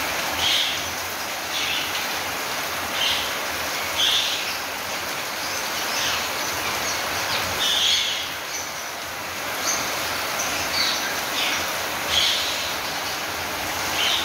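Ring-necked parakeets calling over steady rain: about ten short, high-pitched screeches, one every second or two, against an even hiss of rainfall on the aviaries.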